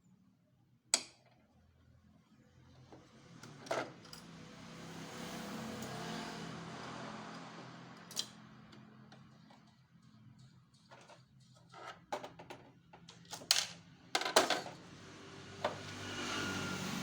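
Scattered sharp clicks and knocks of a screwdriver and the copier's plastic document-feeder parts being handled, over stretches of noise that swell and fade.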